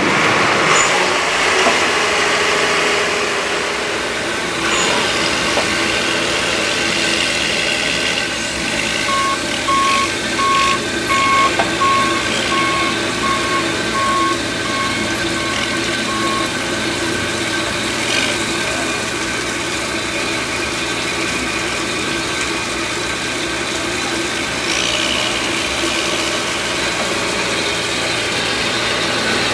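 Heavy diesel equipment running steadily at a snow-melting site. Partway through, a backup alarm beeps at an even pace for several seconds as a truck or loader reverses.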